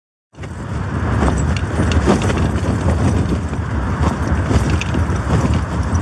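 After a moment of silence, strong storm wind buffeting a Hilleberg solo tent, heard from inside: a loud, constant low rumble with rapid flapping and rattling of the tent fabric.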